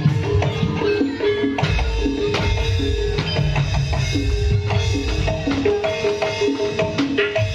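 Live campursari gamelan music: a run of short, repeated struck metal keyed notes over steady drum strokes, accompanying a dance.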